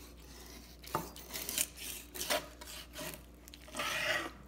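Kitchen knife cutting a raw chicken leg quarter away from the body along the thigh bone: a sharp click about a second in, then a series of short scraping, rasping strokes, the longest near the end.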